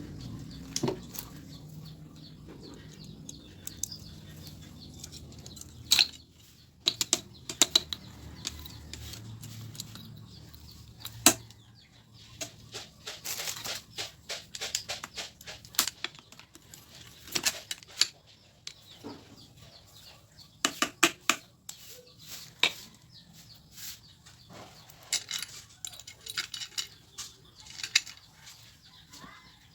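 Irregular sharp metallic clicks and clinks of hand tools and small engine parts being handled, some in quick clusters. A faint low hum underneath fades out about ten seconds in.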